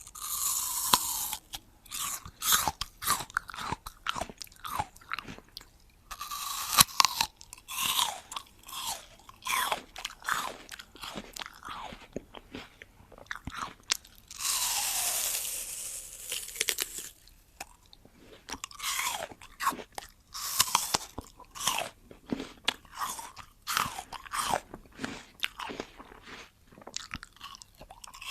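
A large crisp apple being bitten and chewed close to the microphone: loud crunching bites at the start, about six seconds in and a longer crunch about fourteen seconds in, with wet chewing crunches in between.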